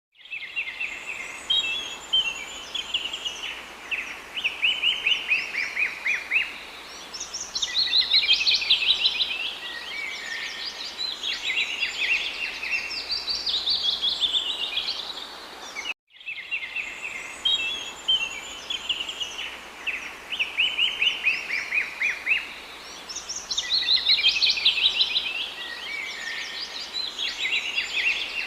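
Songbirds singing and chirping in quick trills, several voices overlapping. About halfway through the sound cuts out for an instant and the same stretch of birdsong starts over, as a loop.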